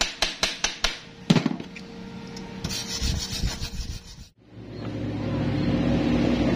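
Chipping hammer tapping slag off a fresh stick-weld bead on steel pipe, about five quick taps a second, then one harder blow and a stretch of scraping on the metal. After a brief drop-out a steady low hum takes over.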